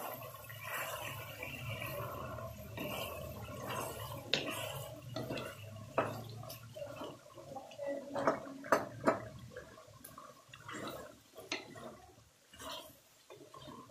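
Chicken and tomatoes bubbling in their juices in a metal karahi as a wooden spatula stirs and scrapes them. Sharp knocks of the spatula against the pan come about six seconds in and three close together a little later, over a low steady hum.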